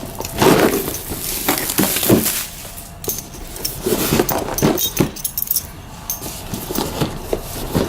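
A cardboard box of plastic miniature sprues being handled and opened: irregular rustling and scraping, with light clattering of the plastic pieces.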